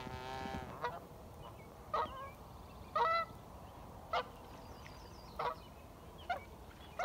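Geese honking repeatedly during a squabble on the water: a drawn-out call first, then short honks about once a second.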